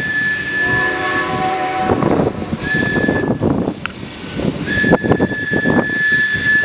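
A steam locomotive's whistle sounds once, briefly, from about half a second to two seconds in, over passenger cars rolling past with wheel clatter. A thin steady high squeal, typical of wheel flanges on a curve, breaks off twice and comes back.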